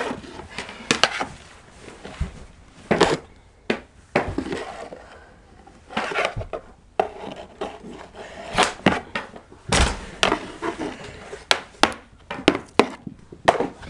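Plastic mini hockey sticks knocking a small ball and clacking on a wooden floor during knee hockey play: an irregular run of sharp knocks, the loudest about three seconds in and again about ten seconds in, with scraping in between.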